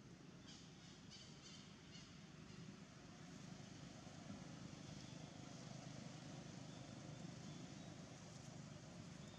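Near silence with a faint low rumble of distant road traffic that swells slightly partway through, and a few faint clicks in the first two seconds.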